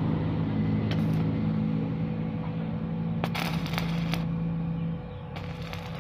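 Brush cutter's small engine running steadily, with short bursts of metallic clatter and scraping about a second in and again from about three to four seconds in; the engine sound drops in level about five seconds in.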